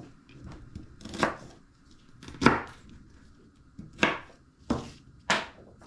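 Knife chopping through raw vegetables onto a cutting board: five separate, unevenly spaced strokes, the second the loudest.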